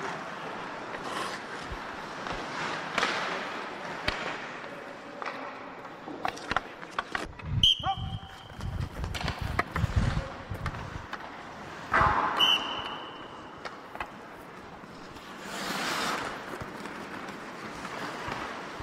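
Ice hockey drill on a rink: skate blades scraping and carving on the ice, with sticks clicking against the puck. Two sharp impacts, about eight and twelve seconds in, each ring briefly. A longer scraping swell comes near the end.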